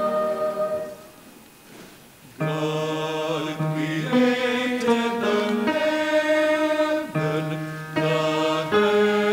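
Slow instrumental music on a keyboard instrument: steady held chords that change about once a second, breaking off for about a second and a half near the start before resuming.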